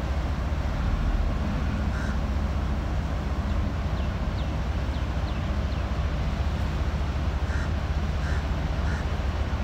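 A tugboat's diesel engine runs with a steady low rumble as its propeller churns the water. A crow caws once about two seconds in, then three times in quick succession near the end.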